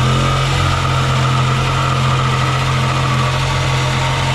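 Electric power saw running steadily with an even motor hum as it cuts along a marked line through wooden cabinetry, enlarging the opening for a fridge.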